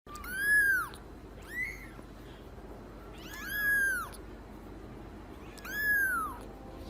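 A cat meowing four times, each meow rising and then falling in pitch, the second one short.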